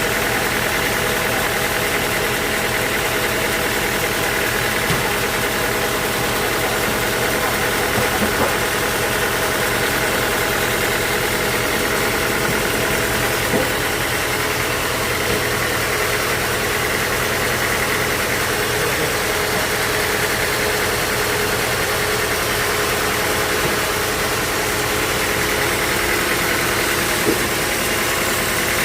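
Sawmill machinery running steadily, a constant mechanical hum with a few faint knocks.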